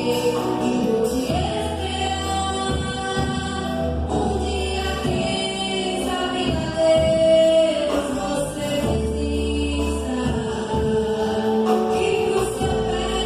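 Gospel music: a choir singing held notes over a band with sustained bass notes.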